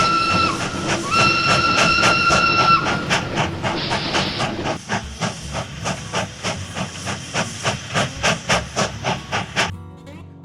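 Train sound effect: two long whistle blasts, then a steady hiss under a fast, even clatter of wheels over rail joints, about three clacks a second, which cuts off suddenly near the end.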